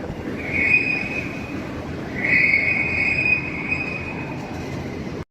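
A train running, its wheels squealing on the rails in a high, steady tone twice over a continuous rushing rumble; the sound cuts off abruptly at the end.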